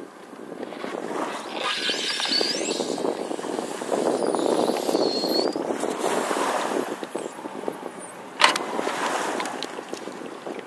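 Sterndrive boat's Mag MPI V8 running slowly as the boat motors up onto its trailer, mixed with water noise and wind on the microphone; a single sharp knock about eight and a half seconds in.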